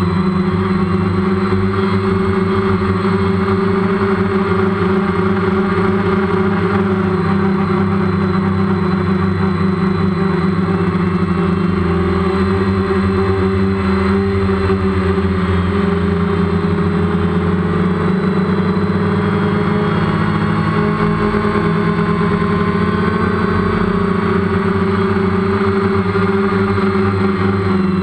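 DJI Phantom quadcopter's electric motors and balanced propellers buzzing steadily in flight, heard close through the GoPro mounted on it. The multi-tone drone shifts slightly in pitch now and then as the motors change speed.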